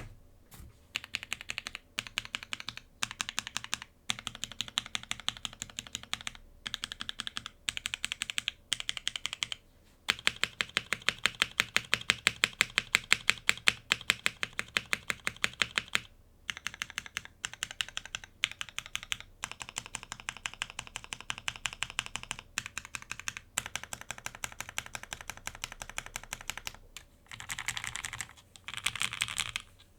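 Typing on a Cannonkeys Chimera65 gasket-mount mechanical keyboard with lubed L+F Marshmallow switches on an FR4 plate and GMK keycaps. Bursts of rapid keystrokes with short pauses between them, with a louder, denser run about ten seconds in.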